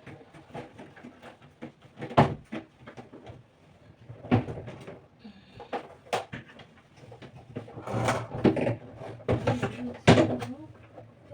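Irregular knocks, bumps and clatter as a small plastic manual washing machine is handled and carried, with a few sharp knocks about 2 s and 10 s in.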